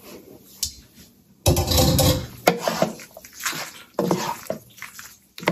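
Penne being stirred into a thick, creamy tomato sauce in a pan with a wooden spoon, making irregular wet stirring and scraping sounds. It starts fairly quiet and is loudest at about a second and a half in.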